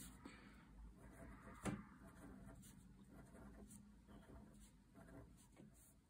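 Faint scratching and tapping of a felt-tip pen colouring in small dots and dashes on paper, with one sharper knock a little under two seconds in.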